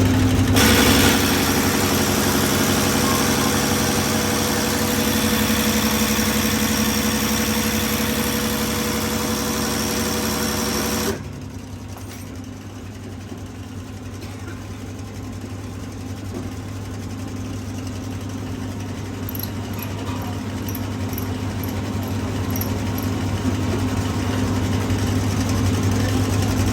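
Machinery running steadily with a low hum. A louder, fuller machine noise joins it just under a second in and cuts off suddenly about eleven seconds in, after which the remaining hum slowly grows louder.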